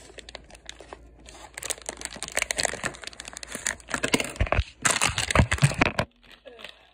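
Plastic toy packaging being snipped with scissors, then crinkled and torn open by hand: sparse clicks at first, then a dense run of crackling from about a second and a half in, with a few dull knocks, stopping abruptly near the end.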